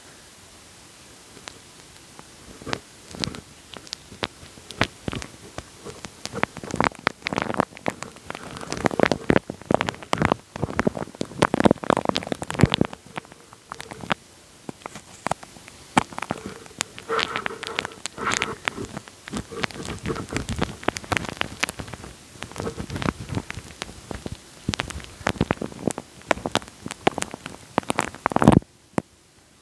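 Wet, sticky crackling and clicking from something worked directly on a microphone: a dense, irregular run of small clicks and smacks, busiest in the middle, with one loud smack near the end.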